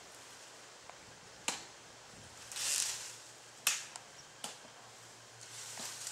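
A pigeon being plucked and skinned by hand: a few sharp snaps as skin and feathers tear away, and one longer ripping hiss about two and a half seconds in.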